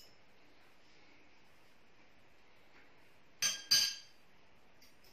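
Metal cutlery and china clinking as a table is laid: two sharp clinks about a third of a second apart, three and a half seconds in, each with a brief ring.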